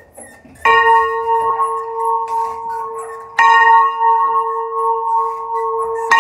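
A church bell swinging in its frame, rung by hand, struck by its clapper three times at about two-and-a-half-second intervals. Each strike rings on at the same pitch until the next.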